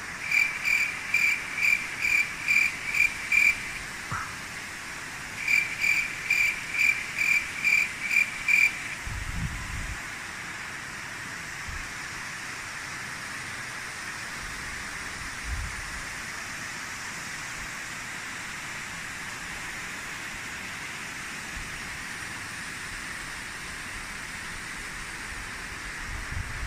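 Steady rain falling. Over it come two runs of about eight high, evenly repeated chirps each, roughly two a second, the first at the start and the second about five seconds in, ending near nine seconds.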